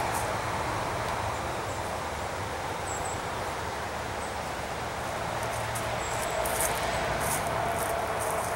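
Steady outdoor background noise with leaves rustling, a few faint clicks near the end.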